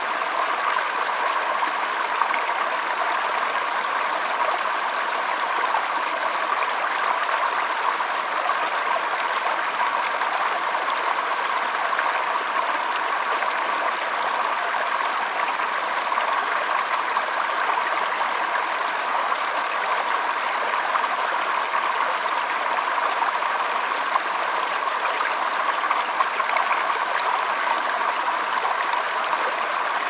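Shallow, rocky stream running over stones: a steady, unbroken rush of water.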